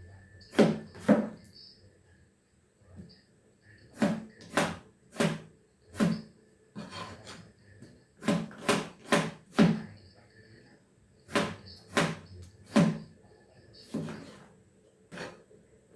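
Kitchen knife chopping onions on a cutting board: sharp knocks in short runs of two to four strokes, about two a second, with brief pauses between runs.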